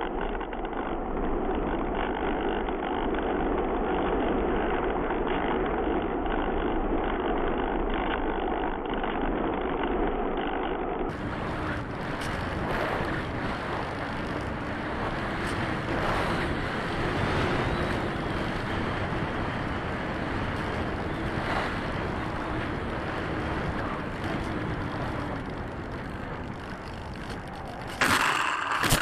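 The Bixler 3 foam plane's electric motor and propeller humming steadily under wind rush, picked up by its onboard camera's microphone in flight. The sound turns brighter about a third of the way in, and near the end a sudden loud rush as the plane skims into the grass.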